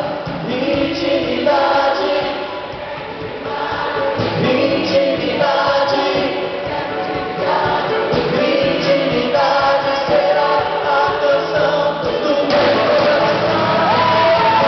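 Live worship band and a group of singers performing a Portuguese-language praise song, sung phrases with held notes over the band's accompaniment.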